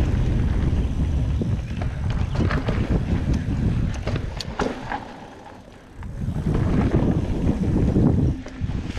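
Wind buffeting the microphone over the rumble of a mountain bike's tyres on a dirt trail, with scattered clicks and rattles from the bike. The noise drops off briefly about five seconds in, then picks back up.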